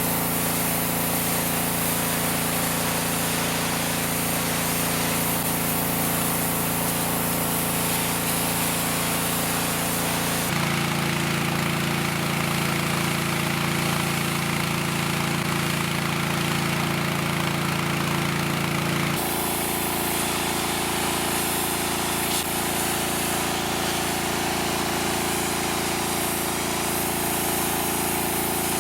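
Champion Pro gas pressure washer running, its small gas engine droning steadily under a hiss of water spray. The sound shifts abruptly in pitch twice, about a third and two thirds of the way through.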